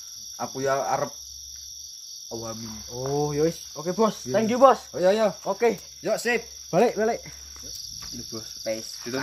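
Crickets chirring in a steady, high, unbroken drone, under voices talking in short phrases.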